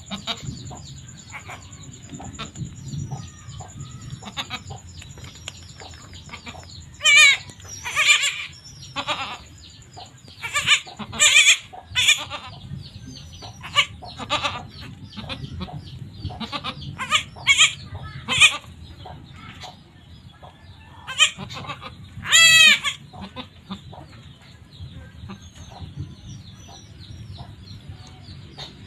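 A nanny goat and her newborn kids bleating: a series of short, loud bleats bunched in the middle, with quieter stretches before and after.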